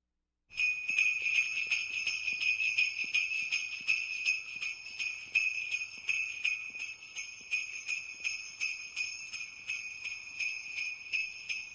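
Sleigh bells shaken steadily in a quick, even rhythm, a bright high jingle that starts about half a second in.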